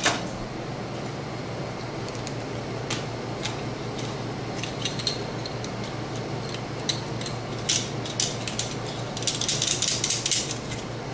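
Small plastic parts of a dismantled Xbox 360 controller clicking and clattering as they are handled, with scattered clicks and a dense run of clatter near the end, over a steady low hum.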